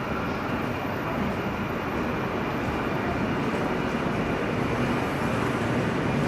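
Passenger train running at a steady pace, its wheels and coaches on the track making an even running noise.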